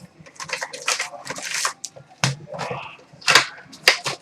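Wrapping and cardboard of a sealed trading-card box crackling and scraping as it is torn open and handled, in a run of short, irregular crackles.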